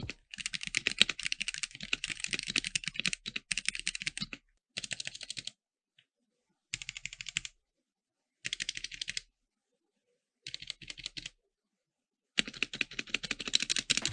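Typing on a stock, unmodified Womier K66 mechanical keyboard: rapid key clacks in bursts. A first run of about four seconds is followed by several short bursts of about a second with silent pauses between, and typing picks up again near the end.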